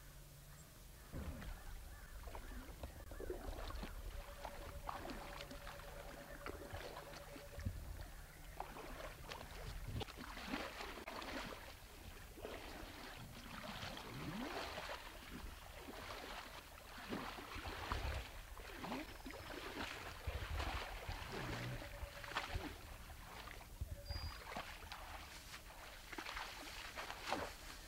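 Water splashing and sloshing as a bull moose wades through a shallow river, with many short splashes. Near the end the moose's legs kick up a bigger splash as it steps out toward the bank.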